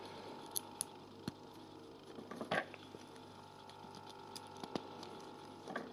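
Small plastic building bricks being handled and pressed together: scattered faint clicks and taps, with a short rustle about two and a half seconds in and another near the end, over a faint steady hum.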